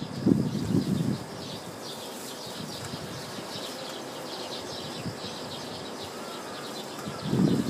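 Outdoor ambience: wind buffeting the microphone in low gusts for the first second and again near the end, over a steady faint high chirping.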